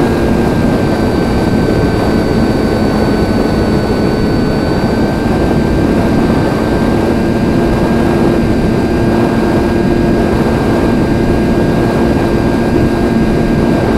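FX-61 Phantom flying wing's electric motor and propeller running steadily in flight, heard close up from on board: a constant hum with a higher whine over a steady rush of noise.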